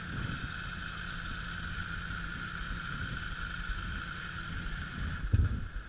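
Motorcycle engines idling as a steady low rumble with a steady higher hum above it, and one short louder thump about five and a half seconds in.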